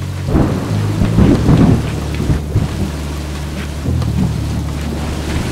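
Heavy artificial rain from a pump-fed rain bar pouring onto a muddy puddle, with louder splashing from boots stomping in the water in the first two seconds. A low steady drone runs underneath.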